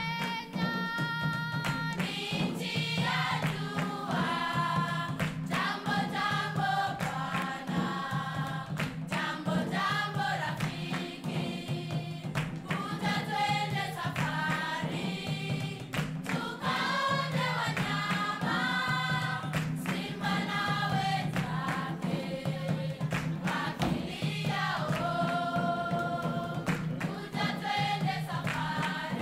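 Music: a choir singing, the voices moving from note to note over a steady low accompaniment.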